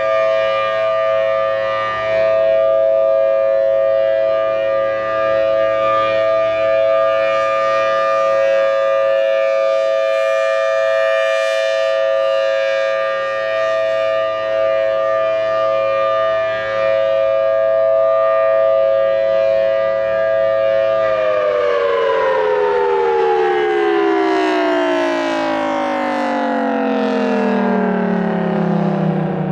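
Federal Signal Thunderbolt 1000T outdoor warning siren sounding a steady chord during its monthly test, then winding down: about two-thirds of the way in, the pitch starts falling steadily and keeps sliding lower to the end.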